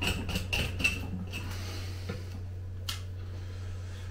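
A tightly root-bound, pot-packed rootball being scraped and teased apart: a quick series of scratching strokes through roots and soil in the first second or so, then quieter, with one sharp click near three seconds. A low steady hum runs underneath.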